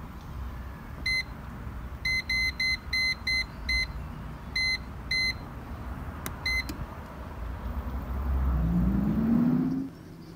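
Air fryer touch-panel control beeping as its temperature and timer are set: about ten short, high beeps in quick runs. Near the end the air fryer's fan motor starts and rises in pitch.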